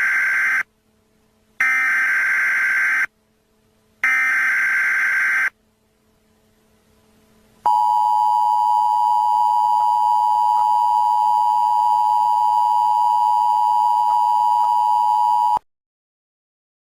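Emergency Alert System (SAME) header: three identical bursts of buzzy digital data warble, each about a second and a half long with short pauses between. A couple of seconds later the EAS two-tone attention signal starts, holds steady for about eight seconds, then cuts off abruptly. The sequence announces an incoming emergency alert message.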